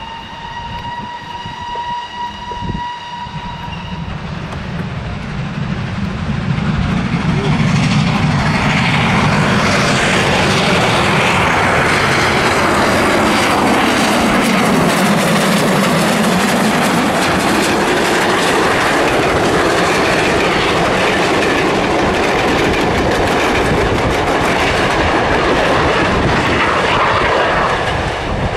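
A steam locomotive whistle sounds one steady blast of about four seconds. Then a GWR 4-6-0 steam locomotive passes close, working a train, its sound building over several seconds and staying loud and steady.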